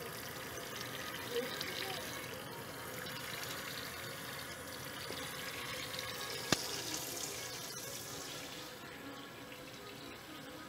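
Kitchen spray faucet running steadily into a stainless-steel sink, the water splashing over a kitten being washed under it. A single sharp click about six and a half seconds in.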